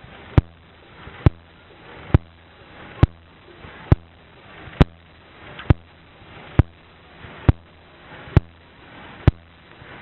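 Slow-running engine firing: a sharp knock a little faster than once a second, very even, over a low steady hum.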